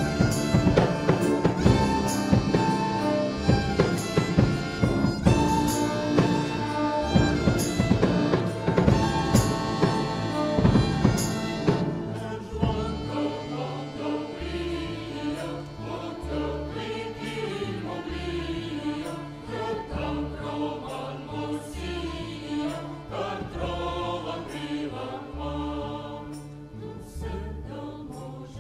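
Mixed choir singing with instrumental accompaniment. The band plays loud and busy for about the first twelve seconds, then drops back to a repeating bass figure under the voices.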